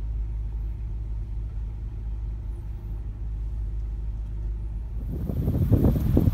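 Steady low rumble of a car, heard from inside its cabin. About five seconds in it gives way to strong, gusty wind buffeting the microphone.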